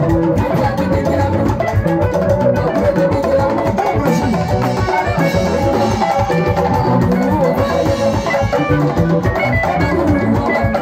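Live music played through a PA: drums and percussion keeping a steady beat, with a voice singing into a microphone over them.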